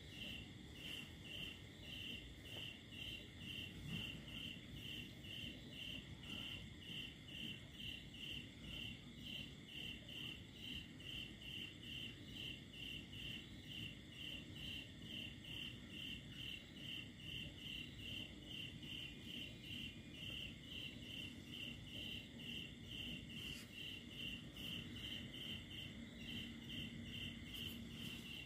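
Cricket chirping in a steady, regular rhythm, about two chirps a second, over a continuous high-pitched ringing.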